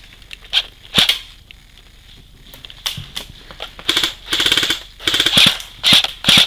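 Airsoft guns firing: scattered single shots at first, then rapid bursts of evenly spaced shots in the second half.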